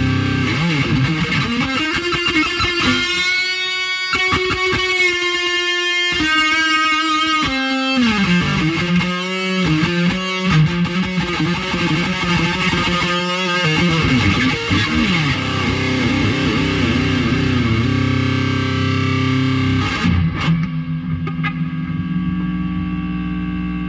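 Electric guitar playing a meandering lead riff: long held notes, and a stretch in the middle where notes glide up and down in pitch.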